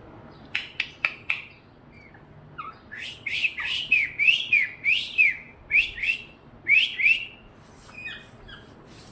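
Indian parrot calling: a few short, sharp notes, then a quick run of shrill chirping calls, about two a second, that trails off into softer calls near the end.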